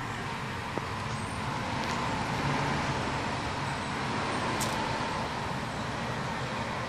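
Steady rushing background noise with a faint hum, broken by a few faint clicks, one sharper than the rest about two-thirds of the way through.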